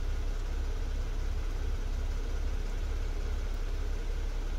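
A 3.3-litre turbo V6 car engine idling steadily, warmed up to about 77 °C coolant temperature while the electronic thermostat's coolant-fill and air-bleed mode runs after a radiator replacement.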